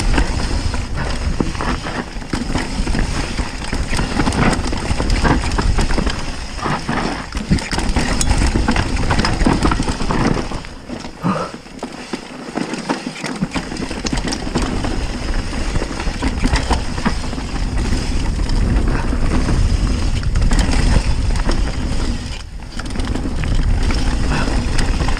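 Mountain bike descending a rough dirt forest trail: tyres running over dirt and stones, and the bike rattling with frequent knocks from the rough ground, under heavy wind rumble on the camera microphone. About eleven seconds in it briefly goes quieter for a couple of seconds.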